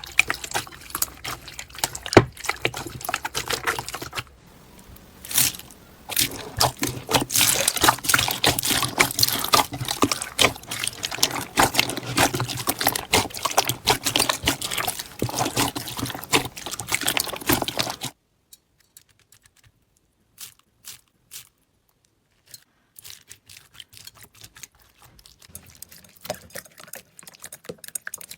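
Slime being squished and worked by hand, a dense run of wet crackles and pops; about two-thirds of the way through it cuts suddenly to much quieter, scattered clicks.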